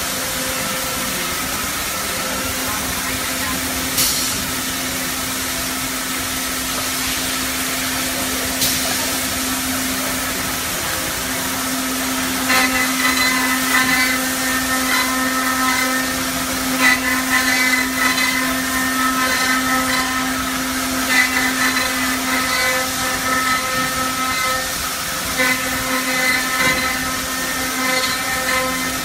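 Four-head CNC mortise milling machine running, its spindle motors giving a steady hum. From about halfway through, a higher whine comes and goes as the router bits cut mortises into the wooden parts. There are two sharp clicks in the first third.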